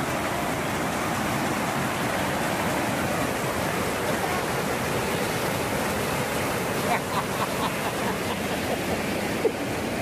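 Waterfall pouring steadily, an even rush of falling water with no let-up. Faint voices come through it near the end.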